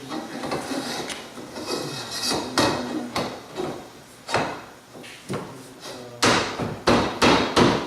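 Irregular clanks and knocks of steel roll cage tubes being handled and fitted together, with a quick series of louder knocks near the end.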